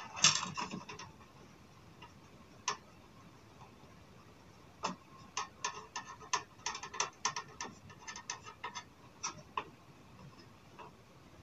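Small screwdriver driving little screws into the plastic case of a Mitac 4023 laptop, giving light, sharp clicks. There is a cluster of clicks at the start and a single click, then a quick, irregular run of small clicks for several seconds from about five seconds in.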